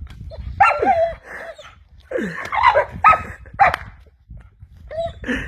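A dog barking and yelping in a series of short, pitched calls with brief pauses between them.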